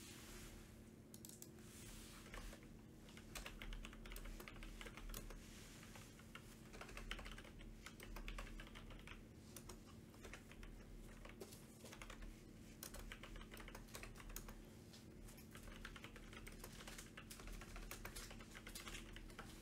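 Faint typing on a computer keyboard: quick irregular runs of key clicks with short pauses, over a steady low hum.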